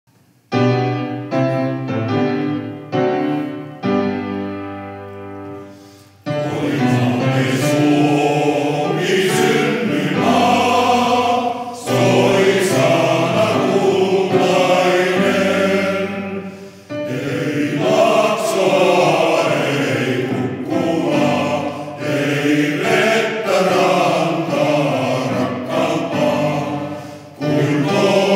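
Upright piano playing an introduction of struck chords that die away, then a male voice choir begins singing with the piano about six seconds in.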